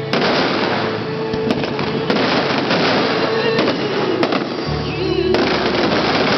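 Fireworks display: dense crackling and bursts of shells going off without a break, with music playing along underneath.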